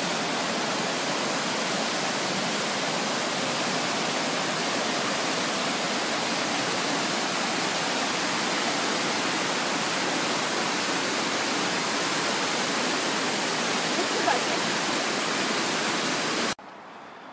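Whitewater rapids rushing steadily over boulders in a rocky creek, cutting off suddenly near the end.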